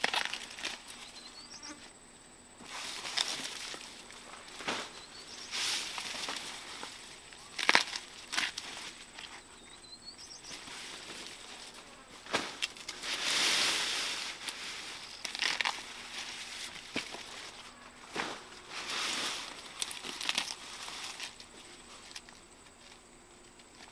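Rustling and crinkling of corn plants being handled, in uneven swells, with several sharp snaps as ears are picked. A few faint bird chirps.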